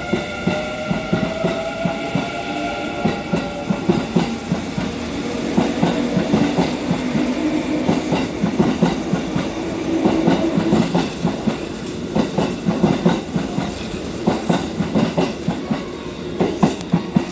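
Kintetsu 9020-series and 1026-series electric train accelerating away from a platform: its traction motors whine, rising in pitch during the first few seconds. Then the wheels clack over the rail joints in regular groups as the cars roll past, and the noise drops off near the end as the last car clears.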